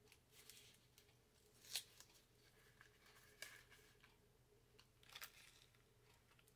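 Faint rustling and tearing of a small craft-supply packet being opened by hand, a few short crinkles, the clearest about two, three and a half and five seconds in.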